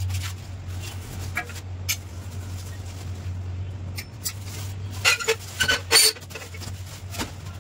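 Light clicks and clattering of small hard objects being handled, with a cluster of sharper knocks about five to six seconds in, over a steady low hum.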